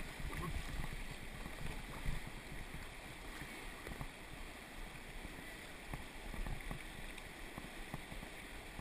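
River rapids rushing steadily, with a couple of light knocks about two and six seconds in.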